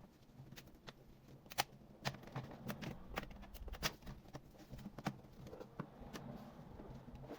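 Irregular light clicks and scrapes of hands working on a laptop's plastic case and small parts.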